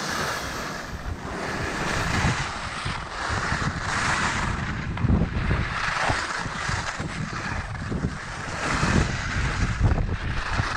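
Wind buffeting the camera microphone while skiing downhill, over the steady hiss and scrape of skis sliding on hard, slippery snow, swelling and fading with each turn.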